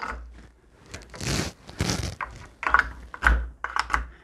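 Hand-fitted pins and plastic gun-fit jaws of a gun vise being handled: rustling scuffs, then a few sharp clicks and light knocks in the second half.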